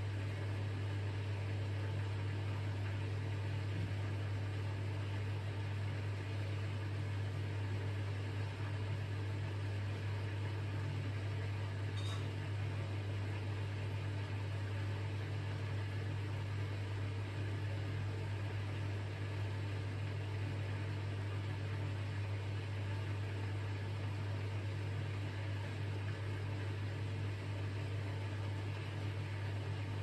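Hoover DynamicNext washing machine's drain pump running with a steady low hum, pumping out the rinse water between the first and second rinse.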